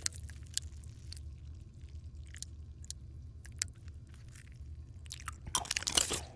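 Wet chewing and mouth sounds of someone eating a spoonful of soup, with scattered small clicks, then a louder, dense burst of chewing near the end, over a low steady hum.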